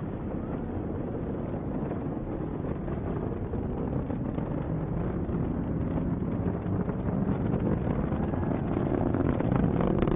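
Atlas V rocket's booster engine during ascent: a steady low, noisy rumble that grows slightly louder toward the end.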